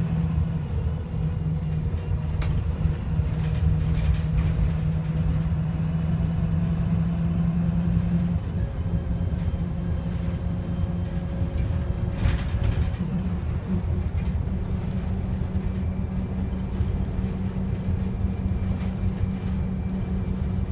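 VDL SB200 bus's diesel engine running with a steady low drone that shifts slightly about eight seconds in, with a few sharp clicks and rattles. The engine is misfiring and sounds rough and unhealthy.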